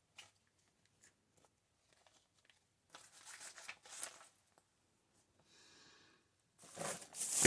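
Paper being handled: a few light taps, then rustling and crinkling of paper about three seconds in, growing louder near the end.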